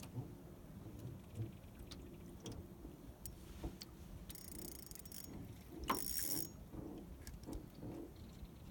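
Fishing reel being worked against a hooked fish, its mechanism ticking and clicking softly, with two short hissing bursts near the middle.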